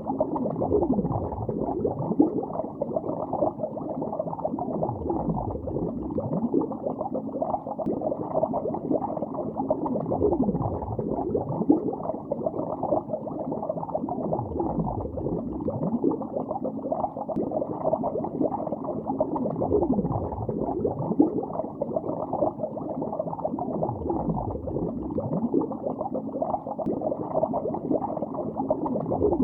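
Underwater lake bubbles: a dense, muffled bubbling and gurgling with a deep swell that falls and rises in pitch about every five seconds.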